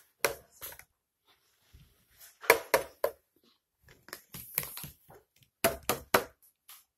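Plastic toy packaging crackling and crinkling as it is pulled open by hand, in a few short spells of sharp crackles, loudest about two and a half seconds in and again near six seconds.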